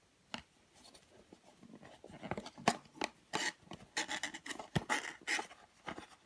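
Small cardboard blind boxes being handled: irregular taps, scrapes and rustles of the cardboard, sparse at first and busier from about two seconds in.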